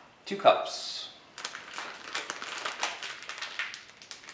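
Plastic bag of P.A.N. cornmeal handled and pulled open by hand: a dense run of crinkling crackles starting a little over a second in.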